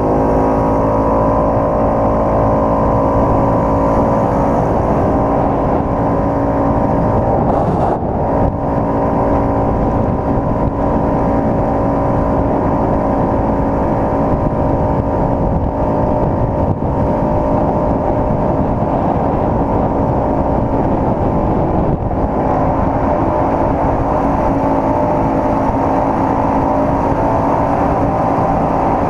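Yamaha Cygnus 125 scooter's single-cylinder engine running at a steady cruising speed, with wind and road noise over it. The engine note wavers briefly about eight seconds in, then holds steady.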